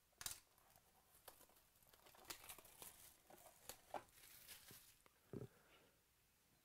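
Faint crinkling and light clicks from a sealed trading-card box being handled and turned over, with a soft knock about five seconds in as the box is set down on the table.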